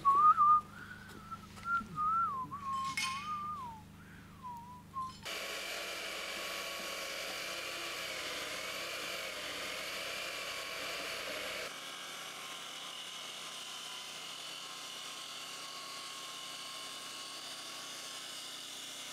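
A person whistling a wavering tune for a few seconds, with one sharp click partway through. Then, from about five seconds in, a Festool HK 85 EB plunge-type circular saw runs steadily on a guide rail, ripping a freshly milled timber plank with an even high motor whine.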